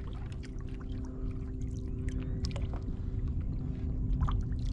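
Small waves lapping and slapping against a plastic kayak hull, with many small splashy ticks over a low rumble, and a steady low hum underneath.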